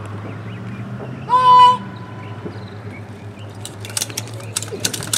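A single loud, high-pitched held call about a second and a half in. From about four seconds in, a growing clatter of boots and rifles as the platoon of soldiers breaks formation and moves off across the pavement.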